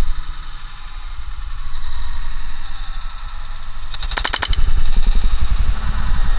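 An airsoft gun fires a short rapid full-auto burst of about ten shots, a little over four seconds in, over low rumbling handling and movement noise.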